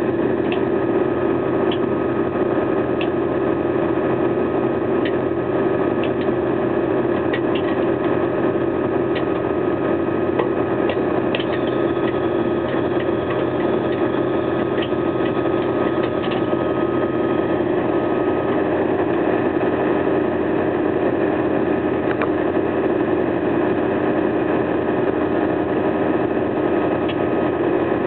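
Vervaet Beet Eater nine-row self-propelled sugar beet harvester running steadily while lifting beets: a constant engine and machinery drone with scattered clicks and knocks. A thin whine runs under it and stops about two-thirds of the way through.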